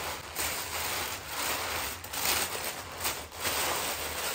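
Crumpled packing paper and plastic wrapping crinkling and rustling in uneven surges as a wrapped item is unwrapped by hand.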